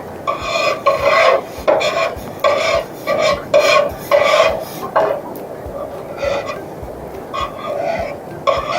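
Repeated rasping, rubbing strokes of food preparation, about two a second, with short pauses around the middle and near the end.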